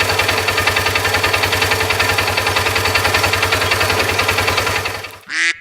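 Polaris RZR 570's single-cylinder engine idling steadily with an even pulse, running after being started by bridging the starter solenoid terminals to get round a failed brake light switch. The engine sound cuts off suddenly about five seconds in, and a short honk follows.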